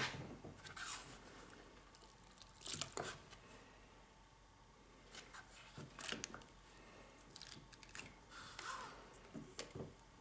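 Faint, scattered light clicks and scrapes of a metal hand tool and gloved hands working around the front bearing and input shaft of a manual transmission's bellhousing, with some rustling.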